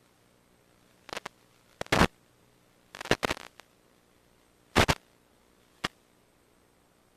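Five short bursts of crackling static on an otherwise near-silent track, some coming in quick clusters of two or three crackles. The loudest fall in the middle, and the last is a single brief crackle.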